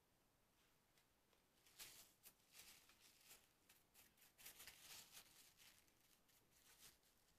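Near silence, with faint, short scratching and rustling from about two seconds in: oil paintbrush and hand working at the painting.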